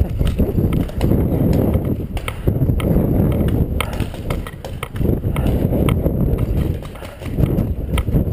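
Running footsteps on dry grass, an irregular series of thuds, under a heavy low rumble from the body-worn camera's microphone being jostled.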